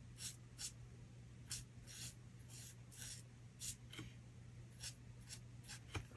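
Faint, quick strokes of an alcohol marker (Spectrum Noir TriBlend) on cardstock, short scratches about two a second as the flame is coloured in. A faint steady low hum lies underneath.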